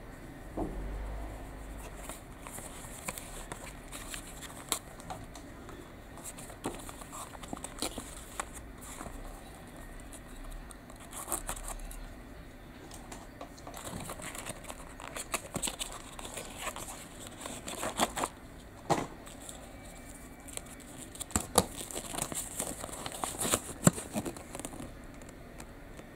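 A cardboard toy box being handled and opened by hand: paper and card rustling with many short sharp clicks and snaps. The loudest rustles and snaps come in the last third, as a folded paper leaflet is pulled out and unfolded.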